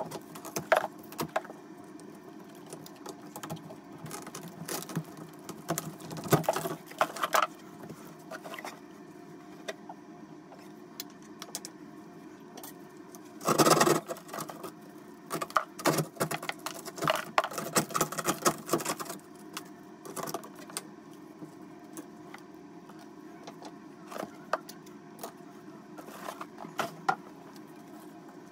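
Irregular metal clinks, knocks and scrapes of a hand tool working on the old three-handle shower valve stems and their trim, over a steady hum. The loudest scrape comes about fourteen seconds in, with a busy run of clinks just after.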